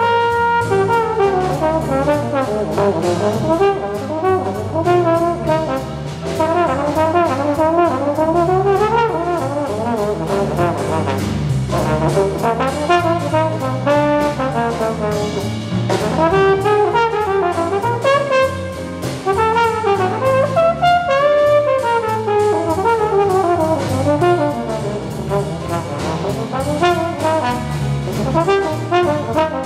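Slide trombone playing a fast, fluid jazz solo over the band's rhythm section, with a drum kit keeping time on cymbals.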